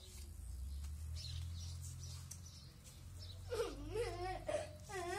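Low rumble of wind on the microphone, with a few faint clicks. About three and a half seconds in, a short wavering cry slides up and down for about a second.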